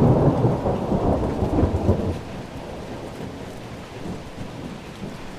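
Low, gusty rumbling noise, heavier for the first two seconds and then easing to a lower, steadier rumble.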